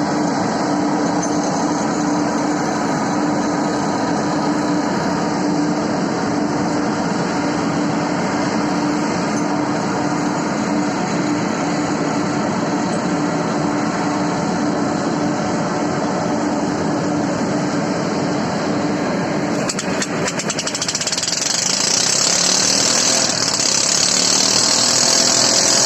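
A greasing machine and a heavy engine running steadily, with a steady hum. About twenty seconds in, a loud hiss sets in and keeps going.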